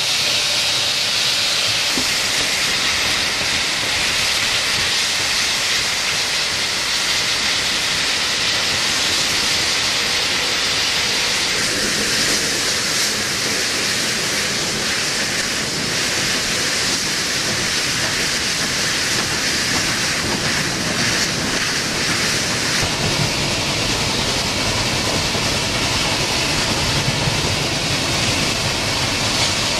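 A 38 class steam locomotive running, with a steady hiss of steam over its running noise.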